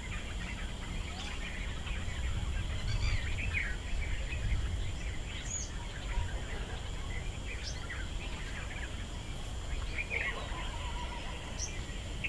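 Woodland ambience: scattered short bird chirps and calls over a steady low rumble and a thin, steady high tone.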